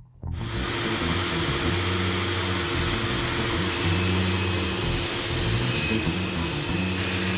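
Circular saw ripping a 3/4-inch form ply panel into strips: a loud, steady cutting noise that starts abruptly and holds even.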